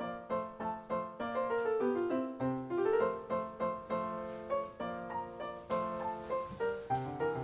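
Background piano music: a gentle melody of steady, evenly paced notes.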